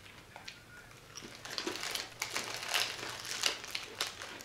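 Plastic crisp packet crinkling as it is handled: irregular sharp crackles, sparse at first and busier from about a second and a half in.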